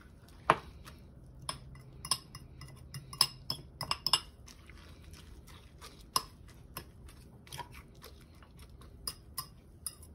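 Metal spoon clinking and scraping against a glass mixing bowl while stirring rolled oats, egg and chopped vegetables: irregular sharp clinks, the loudest about half a second in.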